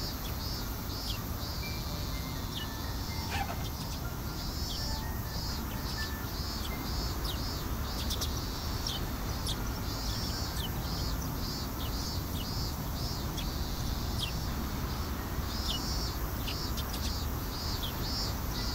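Outdoor ambience: high chirping calls repeated about twice a second, with a few short, sharp chirps mixed in, over a steady low rumble.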